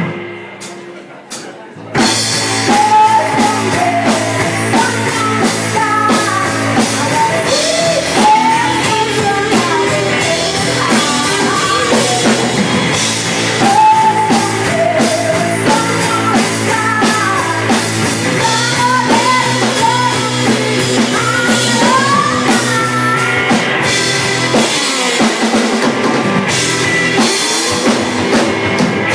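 Live rock band playing through a PA: electric guitars, a drum kit and a woman singing lead. The music drops to a brief break at the start, and the full band comes crashing back in about two seconds in.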